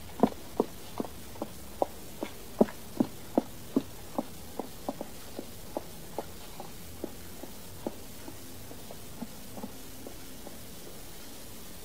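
Footsteps walking away at a steady pace, about two and a half steps a second, growing fainter until they die out near the end.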